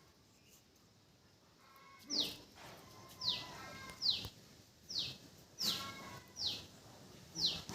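A bird calling over and over: short, high notes that slur downward, about one a second, starting about two seconds in.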